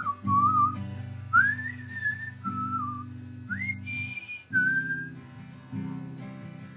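Background music: a whistled melody with sliding notes over strummed acoustic guitar chords.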